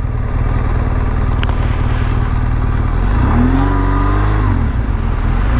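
BMW R1200GS flat-twin motorcycle engine running at low road speed, its pitch rising, holding and easing back about three seconds in as the throttle is opened and closed.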